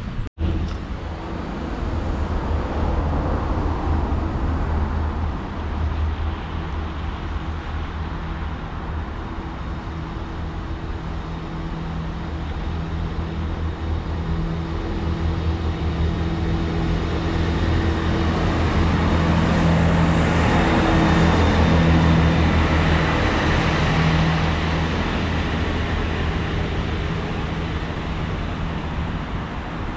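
Diesel multiple unit's engines running: a steady low drone with a hum that swells louder about two-thirds of the way through. A brief cut in the sound comes just after the start.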